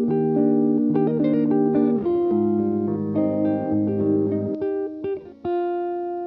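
Background music: plucked guitar notes playing a melody, fading away near the end.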